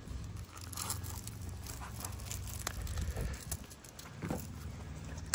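Velcro strap being pulled and pressed closed around a bike frame tube, with the fabric battery bag rustling under the hands: a few short rips and scuffs.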